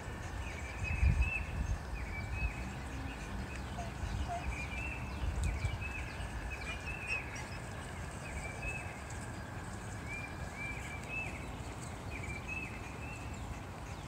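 Outdoor ambience: a steady run of short, high chirping calls repeating every half second or so, with a couple of low gusts of wind rumbling on the microphone.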